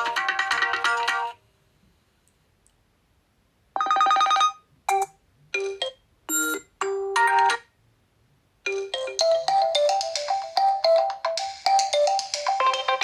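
Oppo A16 phone tones played one after another. A melodic ringtone ends about a second in. After a pause comes a short tone of several separate chime notes, and after another pause a new ringtone with quick, repeated notes starts.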